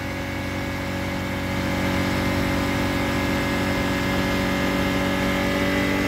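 BMW N52 inline-six engine running steadily above idle, getting slightly louder about a second or two in. The engine has a vacuum leak that shows as high fuel trims improving with revs, which the mechanic traces to a failed crankcase ventilation valve in the valve cover.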